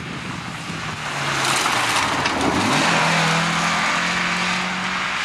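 Rally car engine at high revs as the car drives past at speed, with rushing tyre and road noise. It grows louder to a peak about three seconds in, then holds a steady pitch as it moves off.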